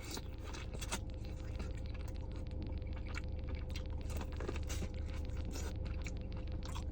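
Close-up eating sounds: biting into and chewing a sauce-covered cob of seafood-boil corn, a steady run of small clicks and crunches over a low hum.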